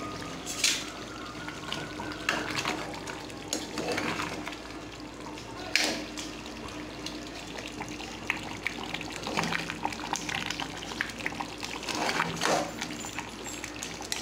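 Thick chicken masala gravy boiling in an open aluminium pressure cooker, bubbling and popping irregularly. In the second half a ladle stirs through it.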